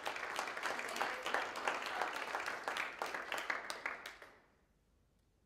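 Audience applauding: many overlapping hand claps that thin out and die away about four seconds in.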